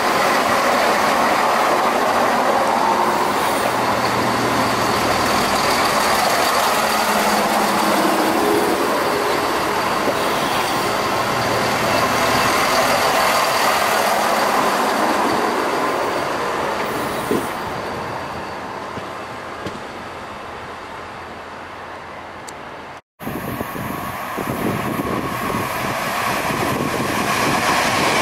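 Chiltern Railways diesel multiple unit running past close by, its engines and wheels loud, then fading over several seconds as it pulls away. After a sudden cut, another Chiltern train of blue-and-white coaches is heard passing, loud again near the end.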